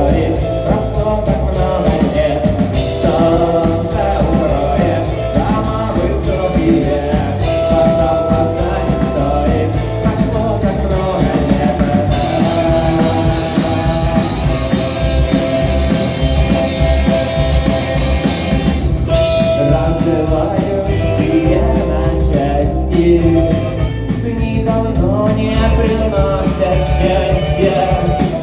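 Rock song played by a band with a singer, drum kit and guitar.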